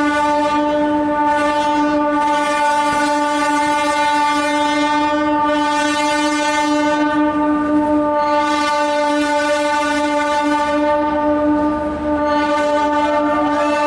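Train horn held in one long, steady blast. A rushing hiss rises and falls over it several times.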